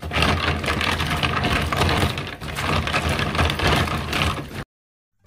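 Tap water running and splashing onto blood cockles and cut banana-stem pieces in a plastic colander, rinsing the mud off the shells. The splashing stops abruptly about four and a half seconds in.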